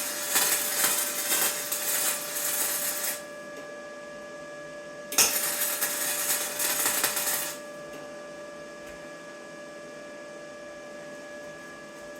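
Electric welding arc crackling in two short beads, one about three seconds long at the start and another about two seconds long starting about five seconds in, welding steel bar onto steel pipe. A steady electrical hum from the welder continues between and after the beads.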